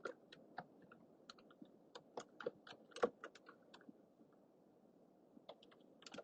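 Typing on a computer keyboard: a run of irregular key clicks that pauses for about a second and a half past the middle, then resumes near the end. Faint, over a steady low hiss.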